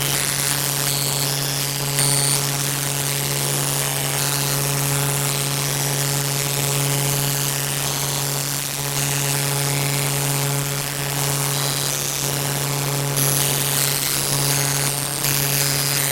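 A loud, steady, buzzing drone with a constant hiss over it, and brief high-pitched electronic blips scattered through it.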